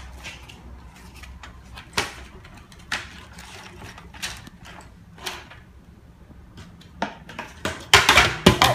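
Plastic packaging and small toy-kit parts being handled: scattered clicks and rustles, with a burst of louder rustling near the end.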